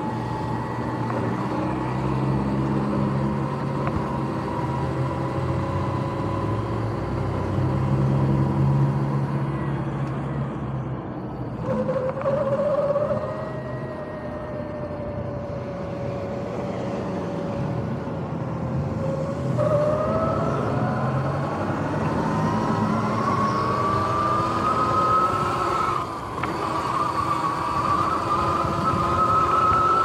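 Sur-Ron X electric dirt bike's motor and drivetrain whining as it rides. The whine holds a fairly steady pitch for a while, then rises steadily over the last ten seconds or so as the bike speeds up.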